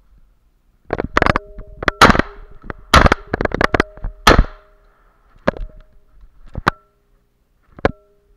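Shotgun shots fired at flushing woodcock, the loudest about two and four seconds in, among a run of sharp clanks. A metal bell rings with each clank, with single clanks near the end, typical of a hunting dog's bell.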